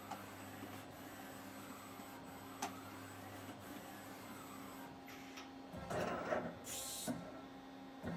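Doosan Lynx 220LMA CNC lathe running with a steady hum. About six seconds in, its tool turret indexes with a clunking whir and then a short hiss, and the same sequence starts again near the end.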